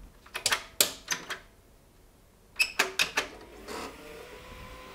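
Several sharp clicks and knocks from a hand working at a graphics card and its metal slot bracket inside an open PC case. Near the end, a steady hum starts as the computer is switched on and its fans spin up.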